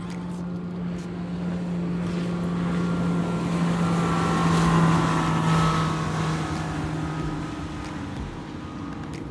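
Motorboat engine passing by: a steady drone that grows louder to a peak about halfway through, then fades away.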